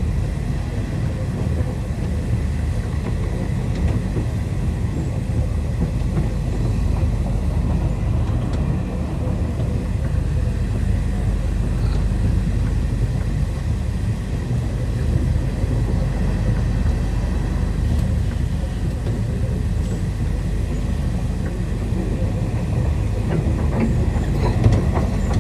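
Intercity Express train running along the track: a steady, loud low rumble with no breaks.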